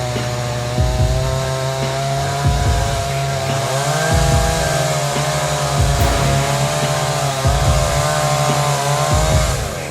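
Two-stroke chainsaw running at high revs as it cuts into a large tree trunk, its pitch dipping and recovering under load, then dropping near the end as the throttle is let off.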